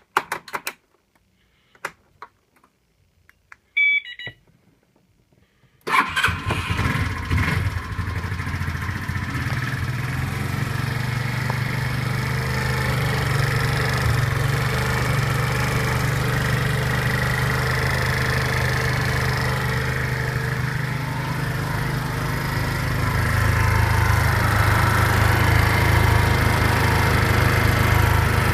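A few clicks and a short beep, then the BN157QMJ 150 cc four-stroke scooter engine starts about six seconds in and runs steadily, a little faster near the end. The owner hears an unexplained knock in this engine.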